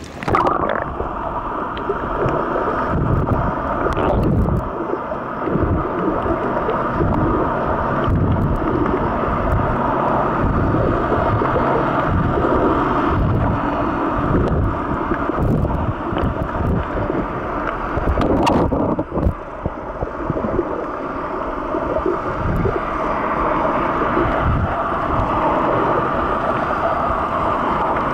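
Water heard through an action camera's waterproof housing while snorkeling: a continuous muffled sloshing and gurgling, with a faint steady hum underneath.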